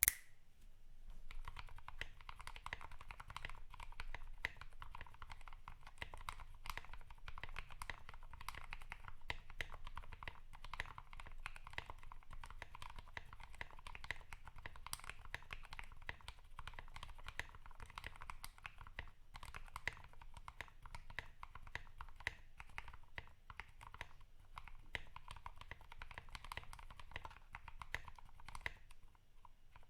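Continuous fast typing on a Drop Alt mechanical keyboard fitted with lubed, filmed Kailh Speed Silver linear switches, lubed plate-mounted stabilizers and PBT keycaps. The keystrokes start about a second in and run on as a dense stream of short clacks.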